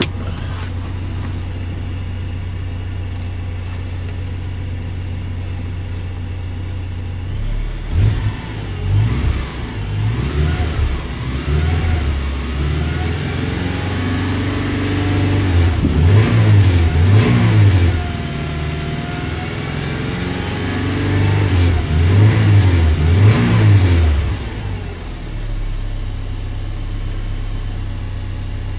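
2002 Toyota Hilux's 2.7-litre petrol four-cylinder engine, heard from the driver's seat, idling steadily and then revved repeatedly. It is held higher, around 3,000 rpm, for a few seconds in the middle, blipped a few more times, and settles back to idle near the end, in an engine run test.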